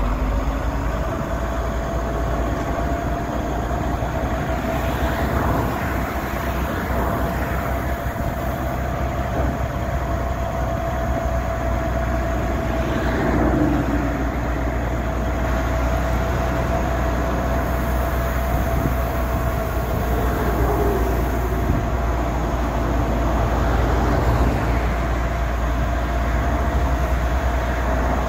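Diesel engine of a 1993 Ford L9000 silage truck running steadily while its hydraulic hoist lowers the dump box, with a steady whine over a low rumble.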